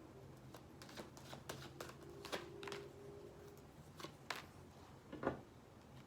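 Tarot cards being handled and shuffled: a string of soft card clicks and flicks, the loudest a little after five seconds in, over a faint steady hum.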